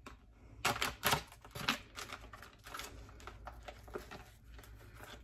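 Thin plastic food tray crackling and clicking while a kitchen knife cuts a burger patty in it: a cluster of sharp clicks in the first couple of seconds, then lighter taps and crinkles.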